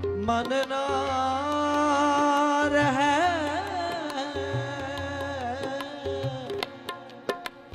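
Sikh shabad kirtan: a male voice holds one long sung line with a winding melodic turn about three seconds in, over sustained harmonium and tabla strokes.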